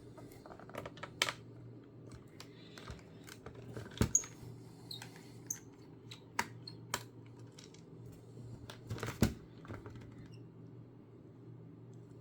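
Small screwdriver clicking and squeaking irregularly in a laptop's screws and plastic case as screws are undone. The clicks stop about ten seconds in. A desktop PC gives a steady low hum underneath.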